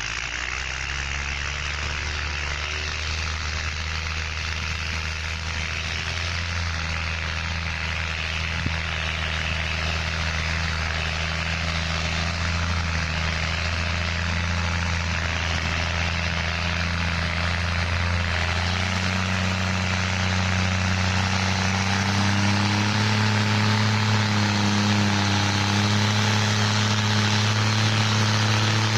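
New Holland TS6.125 tractor's diesel engine running steadily as the tractor approaches, growing louder. About two-thirds of the way through, the engine note steps up in pitch.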